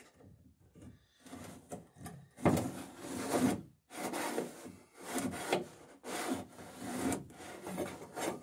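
Pencil and steel straightedge scraping along the wooden bottom of a dory, scribing the line where the centerboard must be trimmed to match the bottom's curve. The scraping comes as a series of short strokes, starting about two seconds in.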